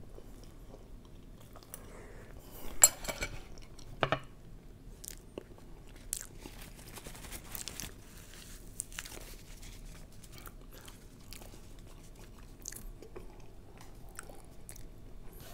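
A person chewing a mouthful of brazo de mercedes, the soft meringue roll with custard filling, with small mouth clicks throughout. Two louder sharp crackles come about three and four seconds in.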